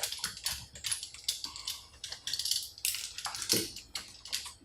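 Irregular small clicks and taps of screws and a screwdriver being worked out of a laptop's screen frame, with light handling of plastic and metal parts.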